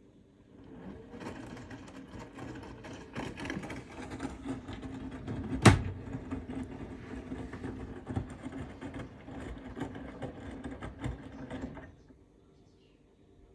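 Bosch Serie 4 front-loading washing machine turning its drum in a wash phase: a steady motor hum with the laundry tumbling and knocking inside, one sharp loud knock about halfway. The drum starts under a second in and stops about a second before the end.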